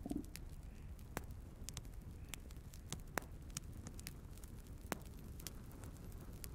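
Firewood burning in a stove, crackling with irregular sharp pops over a faint low rumble of the flames; the loudest pops come about three and five seconds in.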